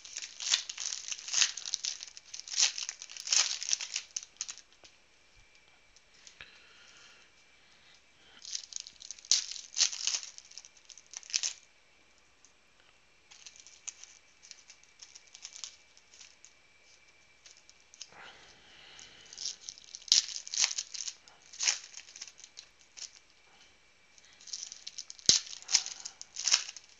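Plastic shrink wrap being torn off a trading card box, then foil card packs crinkling as they are handled and torn open, in about five separate bursts of crackling.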